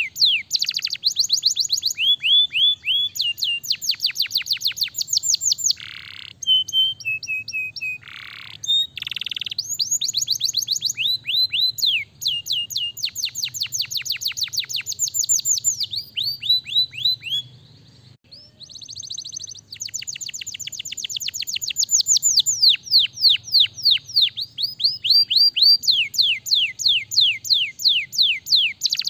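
Domestic canary singing: long rolls of rapid trills made of quick downward-sweeping notes repeated several times a second, changing pitch from one roll to the next, with a short break about two-thirds of the way through before the trills resume.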